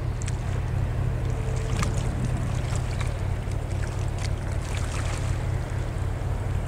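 A cargo ship's diesel engine running with a steady low hum as the vessel passes along the canal, with wind buffeting the microphone.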